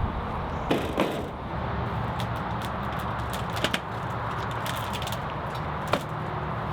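Several sharp knocks and cracks from the bridge's timbers being worked, over a steady rush of freeway traffic.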